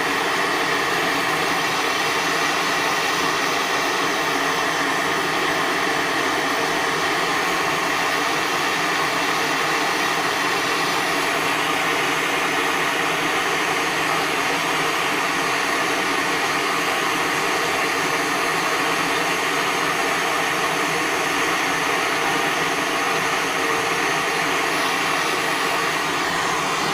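MAPP gas torch flame running steadily as a constant rushing hiss, heating a crucible to melt silver and tin.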